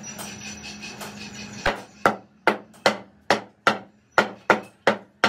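A hand hammer strikes the freshly cast ship propeller in its sand mould over and over, starting a little under two seconds in. The blows are sharp and even, about two or three a second, over a steady background hum.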